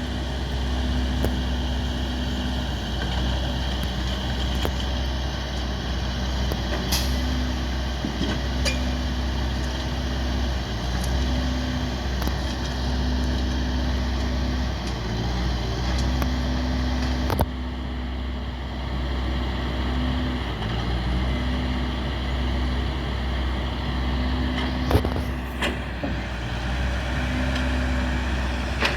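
Heavy vehicle engine running steadily with a deep rumble and a low hum that cuts in and out every two to three seconds, with a few sharp metallic clanks.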